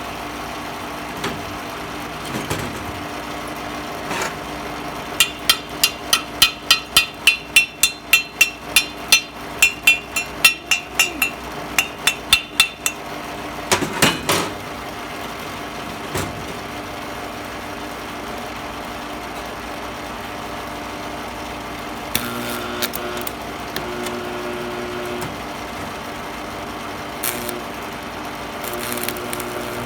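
A hammer striking steel in a rapid run of blows, about three a second for some eight seconds, each blow with a bright metallic ring, then a few isolated knocks.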